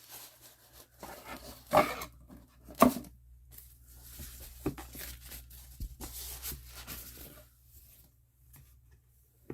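Product packaging being opened and handled: rustling and tearing of the box and wrapping, with two sharp knocks about two and three seconds in and scattered small clicks.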